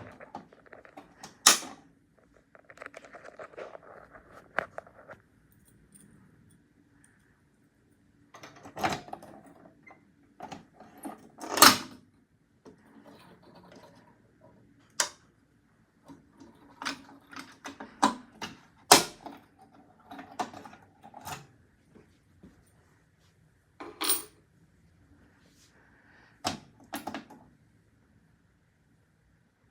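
Fire alarm pull station being handled: a series of sharp clacks from its mechanism, spread unevenly through the span, with lighter rattling and clicking between them. No alarm sounds.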